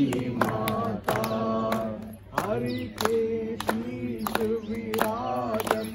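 Worshippers' voices chanting a prayer together on long, steady held notes, broken by short pauses, with sharp clicks scattered through.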